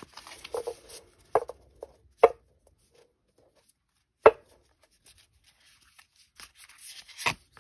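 A brand-new, stiff tarot deck being hand-shuffled: the cards slide and rustle, with four sharp taps as the deck is squared up in the hands, the loudest about four seconds in.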